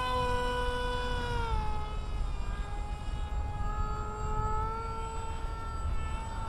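Electric motor and propeller of an FRC Foamies F-16 MK1 foam RC park jet whining in flight at a distance. The pitch holds steady, dipping slightly about a second and a half in.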